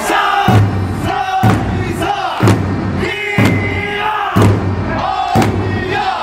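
Eisa drums: large barrel drums (ōdaiko) struck together about once a second, six beats in all. Between the beats the dancers shout and chant their calls.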